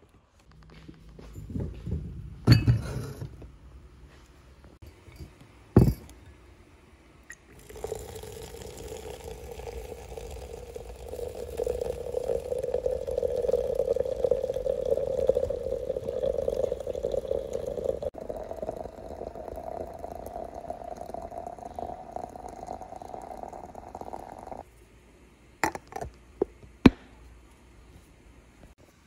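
Hot water poured steadily into a glass teapot over loose black tea and herbs for about seventeen seconds, the pouring tone rising slightly as the pot fills. A few glass knocks come first, and light clinks follow near the end.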